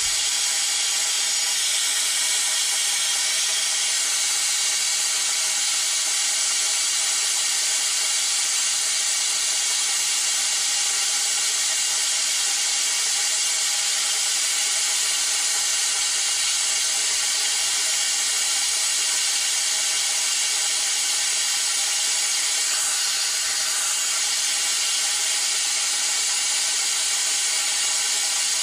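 Compressed-air venturi vacuum tool on a truck's coolant reservoir, hissing steadily as it pulls a vacuum on the cooling system to check for leaks before vacuum filling with coolant.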